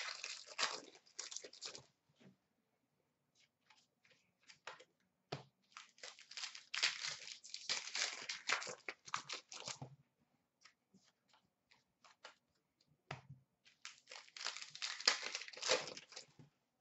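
Panini Contenders hockey card pack wrappers being torn open and crinkled, in three bursts of crackly rustling, the longest in the middle, with light ticks of cards being handled in between.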